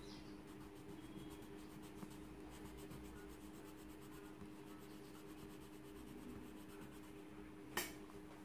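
Faint scratching of a coloured pencil shading on drawing paper, over a steady low hum. A single sharp click near the end.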